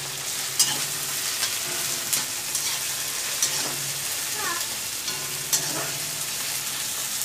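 Chopped chillies, tomatoes and onions sizzling in hot oil in a black kadai as a slotted steel spatula stirs them, with an irregular scrape or clink of metal on the pan every second or two.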